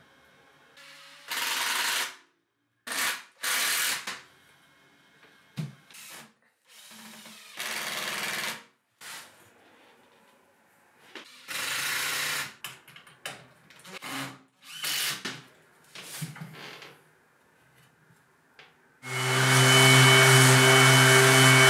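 Cordless driver sinking screws into pine framing in short bursts of about a second, with quiet gaps between. Near the end a corded DeWalt random orbital sander starts and runs steadily with a strong hum.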